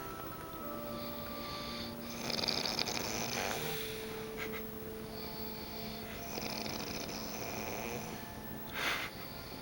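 A woman snoring in her sleep: several noisy snoring breaths at uneven spacing, with a short, sharp one near the end.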